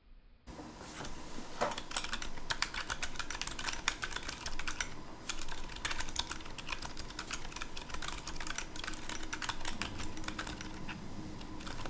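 Typing on a mechanical keyboard with 68g Gazzew Boba U4 silent tactile switches lubed with Krytox 205g0, in an Epomaker GK68XS: a quick, irregular run of soft keystrokes, starting about half a second in, with a short pause near the middle.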